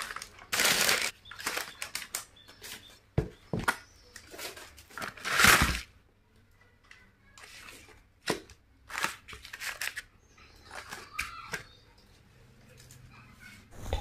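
Paper food wrappers and banana leaves rustling and crinkling in irregular bursts as fried chicken and fries are handled and set down, with a few light knocks on the table.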